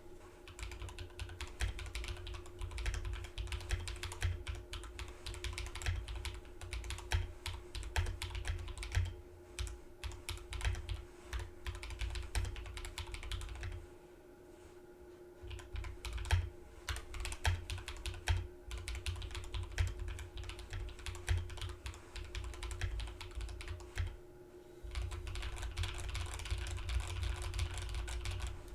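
Typing on a Drop Alt mechanical keyboard with hand-lubed Drop Holy Panda v2 tactile switches and lubed stock stabilisers: a quick run of keystrokes, broken by two short pauses, the typing getting faster and more even near the end.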